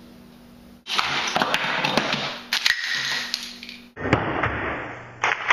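Sharp clicks and knocks from a homemade Rube Goldberg chain-reaction machine running, over a steady hiss, with a loud knock about four seconds in as a book topples onto a stuffed mouse.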